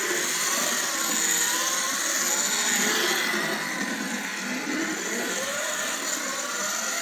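Small electric motor of a 1958 Plymouth Belvedere police slot car whining as the car laps the track, its pitch rising and falling as it speeds up and slows.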